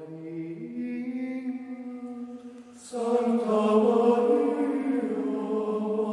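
Male voices chanting slowly in plainchant style, holding long notes that step from pitch to pitch; about three seconds in, more voices join and the chant grows louder and fuller.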